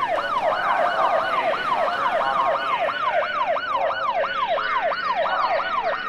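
Fire engine siren in a fast yelp, its pitch sweeping up and down about three times a second, with fainter higher sweeps layered over it.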